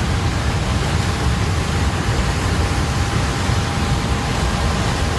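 Loud, steady rushing noise with a heavy low rumble and a faint steady tone above it.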